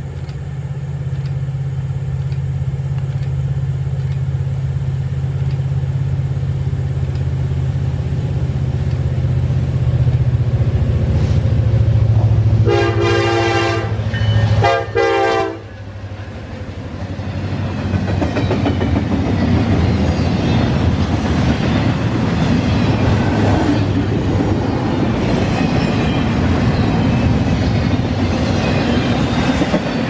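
Norfolk Southern freight train: the diesel locomotives' engine drone grows louder as they approach. The locomotive's chord horn sounds about halfway through, one long blast and then a short one. The locomotives then pass, and double-stack intermodal container cars roll by with a steady clattering of wheels on the rails.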